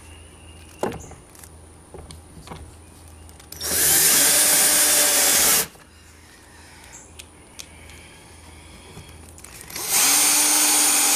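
Cordless drill driving screws into wood, in two runs of about two seconds each, one about four seconds in and one near the end, the motor spinning up and winding down each time. Light knocks of handling between the runs.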